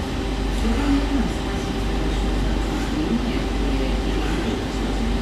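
Steady low rumble of background room noise, with faint indistinct voices in it.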